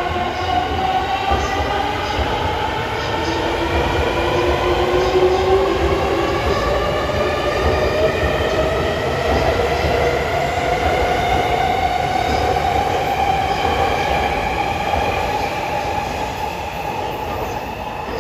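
Tokyo Waterfront Area Rapid Transit 70-000 series electric train pulling away from a station, its traction motor whine rising slowly and steadily in pitch as it gathers speed, over the rumble of wheels on rail. Faint clicks from the wheels over rail joints; the sound eases off near the end as the train moves away.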